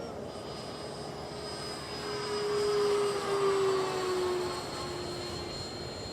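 E-flite Viper 70mm electric ducted-fan RC jet flying past, its fan whine swelling to its loudest about two to four seconds in and dropping in pitch as it goes by.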